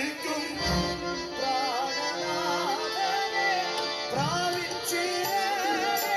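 Christian worship song: a voice sings a wavering, ornamented melody over held instrumental notes. Low drum thumps come about a second in and again about four seconds in.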